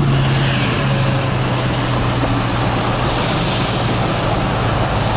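Car engine and tyre-on-road noise heard from inside the moving car: a steady low hum over a broad hiss.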